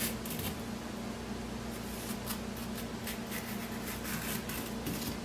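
Fork tines scraping along cucumber skin in short, repeated scratchy strokes, several a second, scoring the skin all around.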